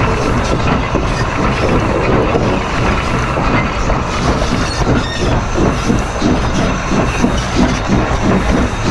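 Running gear of D&RGW 491, a narrow-gauge 2-8-2 steam locomotive, heard close at its fourth driving wheel: a steady, loud clatter and rumble of steel wheels on rail. The engine is working hard up a steep grade, and the inside flange rubs against the rail on the curve.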